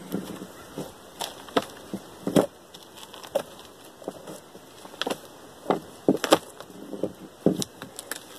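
Bark being pried and peeled off a felled log with a long-handled tool: irregular sharp knocks and cracks of the blade against the wood and the bark splitting away, about a dozen in all, the loudest about two and a half and six seconds in.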